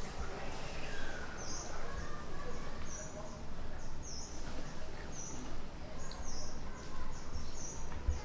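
A bird chirping repeatedly: short high calls about once a second over a steady outdoor background.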